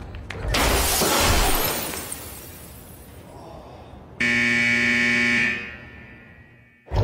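A loud crash that fades away over a couple of seconds, then a steady buzzer sounding for just over a second before cutting off.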